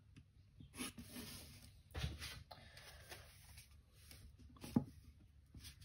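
Pencil strokes scratching on paper as lines are ruled along a plastic drawing template, with two light knocks, about 2 s and near 5 s in, as the templates are moved and set down.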